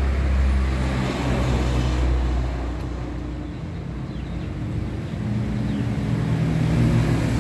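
Road traffic passing: a deep vehicle rumble that dies away about halfway through, then another vehicle's engine drone building near the end.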